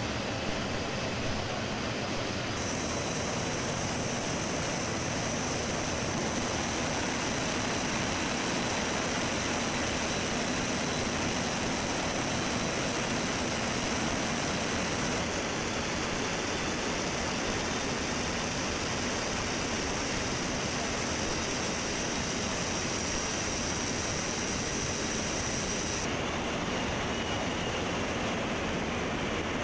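Steady rush of wind and turbofan engine noise inside a C-17 Globemaster III's cargo hold, its side paratroop door open, with a faint high whine over it. The noise changes character abruptly three times: a few seconds in, about halfway, and a few seconds before the end.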